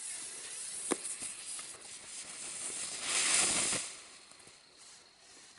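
A lit firework hissing, with a sharp click about a second in and a louder rush of hiss for most of a second near the three-second mark, then dying away.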